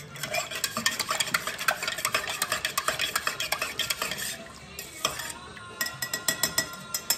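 Metal spoon stirring salt into lemonade and lime juice in a stainless steel cup, clinking rapidly against the ringing metal sides for about four seconds. After a short pause there are a few more quick taps near the end.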